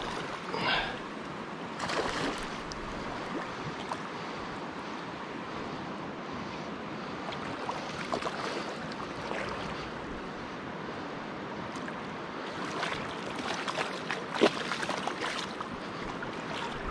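Shallow river running steadily, with irregular bursts of splashing from a hooked coho salmon thrashing at the surface, thickest near the end, and one sharp tap in that late cluster.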